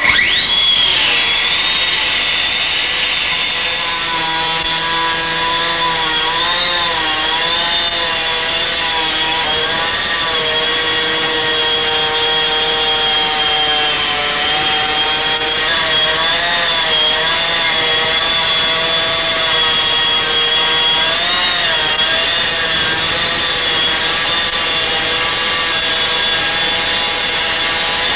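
A hydraulic stone-cutting machine cutting through a stone slab starts abruptly. It runs as a steady grinding whine whose pitch wavers and dips as the load on the cut changes.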